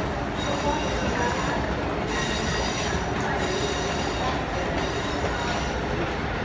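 Amtrak Acela Express trainset rolling past, a steady rumble of wheels on rail with a high, drawn-out wheel squeal over it.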